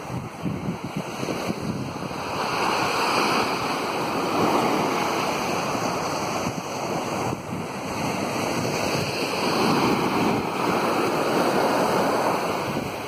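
Sea surf breaking on a sandy shore and washing up the beach, swelling and easing in slow surges a few seconds apart.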